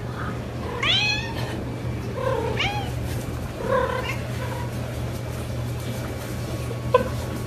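A cat meowing three times, the first meow the loudest and longest, over a steady low hum. A single sharp click comes near the end.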